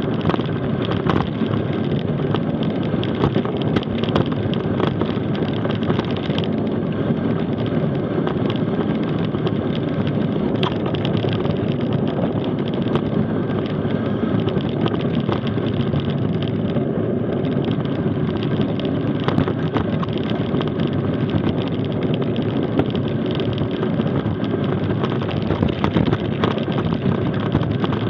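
Mountain bike coasting fast down a dirt and gravel trail: steady rumbling of the tyres on the loose surface, with a constant rattle of small clicks and knocks from the bike, and wind on the microphone.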